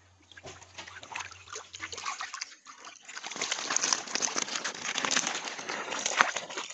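Fish thrashing and splashing in a few centimetres of water in a drained pond as a plastic basket is pushed among them. Scattered splashes at first, then dense, continuous splashing from about three seconds in.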